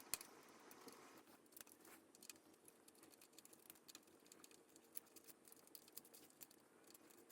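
Near silence with faint, scattered small clicks and ticks, the clearest just at the start: a hex key working the bolts of a mountain-bike stem's faceplate loose.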